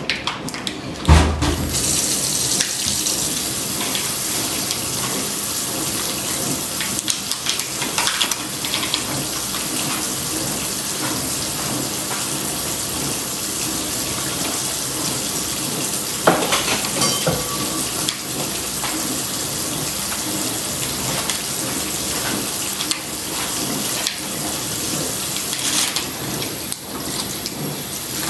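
A steady rushing noise like running water that starts just after a thump about a second in, with scattered clicks and rustles as candle packaging is handled and a sharper knock about two-thirds of the way through.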